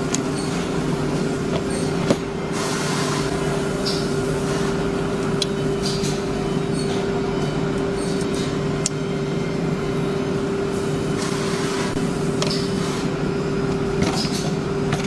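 Panel woodworking machinery running steadily with a constant hum, and light clicks and knocks here and there.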